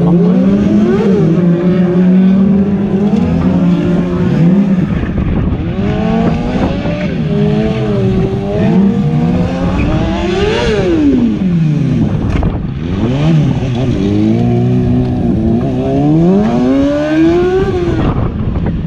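Motorcycle engine revving repeatedly, its pitch climbing and falling again and again. The highest rev comes about ten seconds in.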